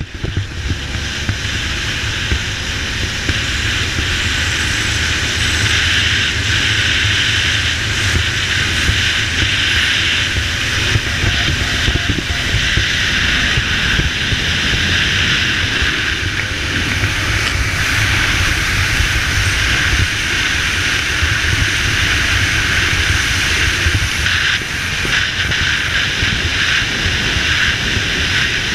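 Powerboats running at speed: a steady rush of wind and water over engine drone.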